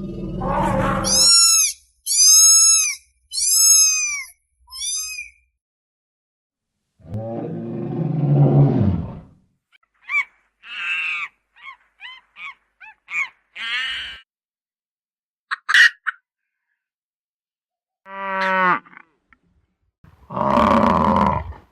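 A series of separate animal calls, one after another. It opens with a low growl, then four high, arching calls. A second low growl follows, then a run of short chattering calls, and near the end a loud, low roar.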